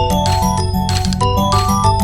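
Music made from Windows system sound effects pitch-shifted into a tune: chime-like melody notes over a moving bass line, with a steady beat of noisy hits.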